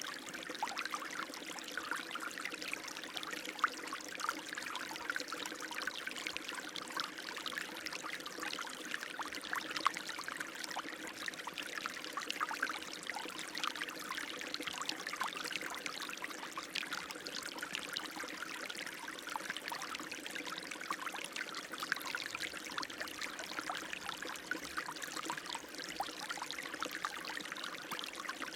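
Running water flowing steadily, a continuous splashing and trickling without pause.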